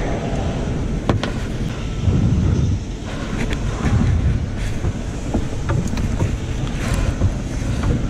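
Wind buffeting the microphone with a steady low rumble, broken by a few sharp knocks and clicks of handling as a caught fish is swung into a small boat.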